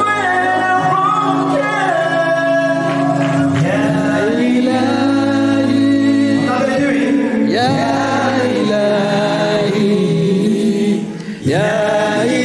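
A male singer performing into a microphone, holding long notes and sliding between pitches over a sustained, droning accompaniment, with a brief break about eleven seconds in.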